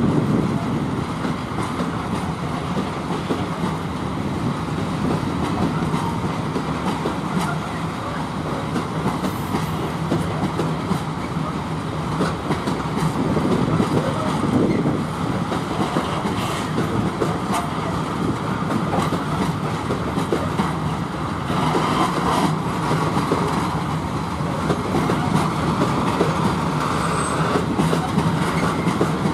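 Loaded tank wagons of a freight train rolling past as it pulls away from a stop: a steady rumble of wheels on rail with repeated clicks over the rail joints.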